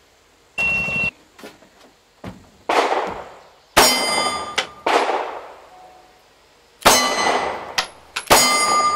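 A shot-timer beep, one steady tone about half a second long, then four semi-automatic pistol shots spaced unevenly over several seconds. Most of the shots are followed by the long ring of a struck steel target plate.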